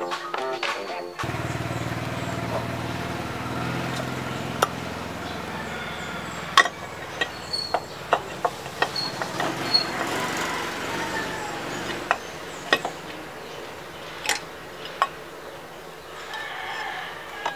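A rooster crowing in the background, over a string of sharp metallic clicks and taps from the motorcycle's aluminium cylinder head cover and its bolts being handled.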